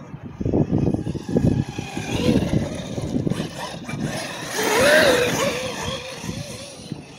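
Redcat Machete 6S brushless electric RC monster truck driving fast across grass, its motor whine rising and falling with the throttle, loudest about five seconds in as it passes close. Rough low gusts of wind or tyre noise run under it.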